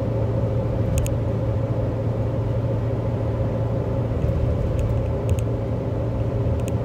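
Steady drone of engine and tyre noise heard inside the cabin of a Lifan X60 SUV cruising on a highway, with a low hum underneath.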